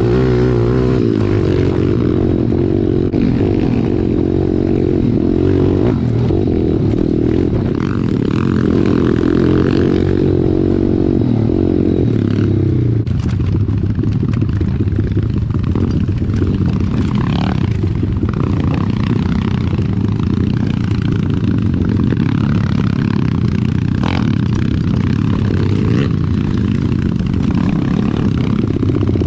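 Small single-cylinder four-stroke pit bike engine running under throttle, its note rising and falling as the rider works the throttle. From about halfway the sound turns rougher, with rattling and knocks from the bike over rutted ground.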